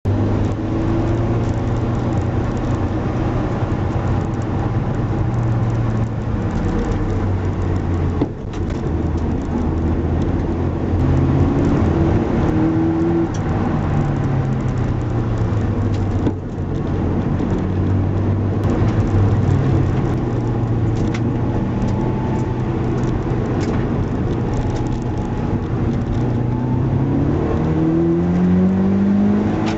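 Car engine running under load, its pitch rising and falling as it revs up and eases off, with two brief dips about 8 and 16 seconds in. The car is recorded for an abnormal noise (異音) that the owner hears.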